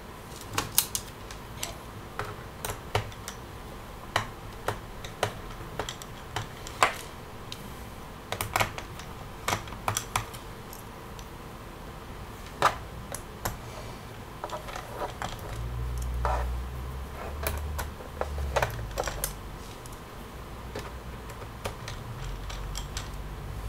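Screws being taken out of a Toshiba Satellite Pro R50-B laptop's plastic base with a small screwdriver: irregular light clicks and ticks of the tool in the screw heads and of small screws being handled. In the second half there are stretches of dull low rumble from handling.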